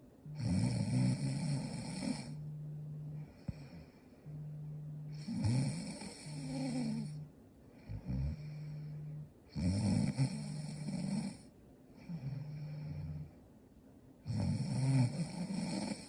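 A sleeping young woman snoring: four loud, rasping snores about every four to five seconds, each lasting about two seconds, with quieter, steady low-pitched sounds on the breaths between them.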